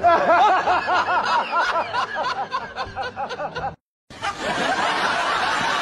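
Dubbed-in laughing sound effect: a rapid run of short, high-pitched giggles, each rising and falling in pitch, about five a second. It cuts off abruptly just under four seconds in, and after a brief silence a steady, noisy background starts.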